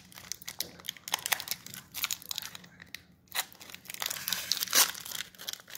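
Foil wrapper of a Pokémon trading-card booster pack crinkling in the hands as it is opened: a run of quick crackles, denser about four seconds in.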